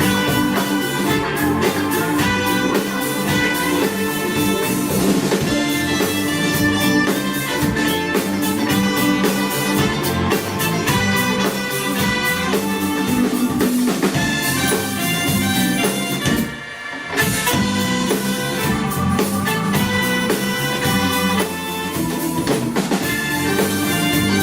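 Live band playing a song, with drum kit over a full ensemble; the band drops out briefly about two-thirds of the way through, then comes back in.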